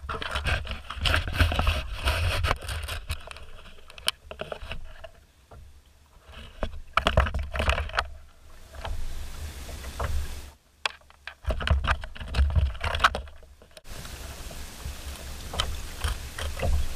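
Handling noises in a plastic fishing kayak: irregular clicks, knocks and scrapes, with wind buffeting the microphone as a low rumble. The sound drops out briefly twice about two-thirds of the way through.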